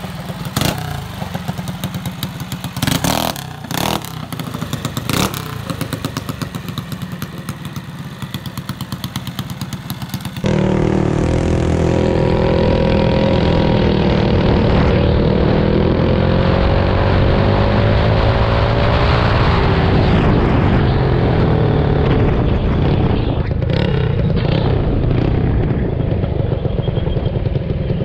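Mini bike engine running at the curb, revved in a few short sharp bursts. About ten seconds in it changes to the engine under way on the road, running steadily, its pitch rising for several seconds and then dropping back.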